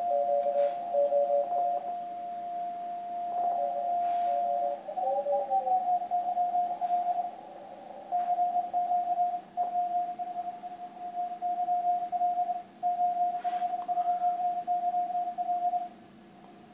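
Morse code (CW) signal received by a Yaesu FTDX-1200 HF transceiver on the 80 m band, heard as a pure tone keyed on and off. For the first five seconds a second, lower keyed tone sounds alongside; then the pitch slides briefly as the radio is retuned, and a single clear keyed tone carries on until near the end.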